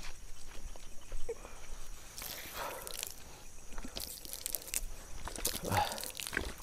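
Water flung from a plastic bottle and splashing onto an asphalt road, in two spells: one about two seconds in and another near the end. A faint steady high chirr of night insects runs underneath.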